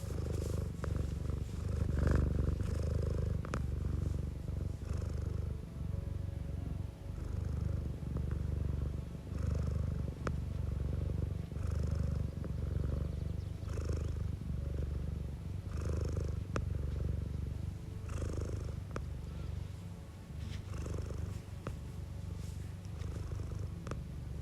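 Domestic cat purring close up: a steady low rumble that swells with each breath, about every two seconds.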